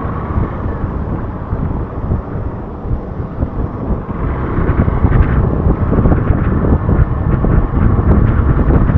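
Wind buffeting the microphone of a Hero Xpulse 200 motorcycle on the move, with the bike's running noise beneath it. It grows louder about four seconds in.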